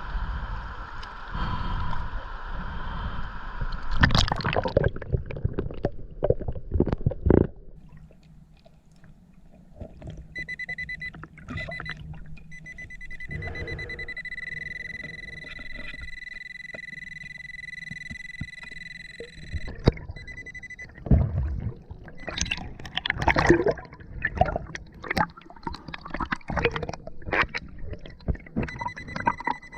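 Water gurgling and splashing around a snorkeler moving through a river, with irregular knocks and splashes. A steady high whine runs for several seconds in the middle.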